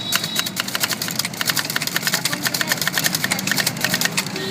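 Manual typewriter being typed on quickly, a fast, uneven run of sharp key-strike clacks.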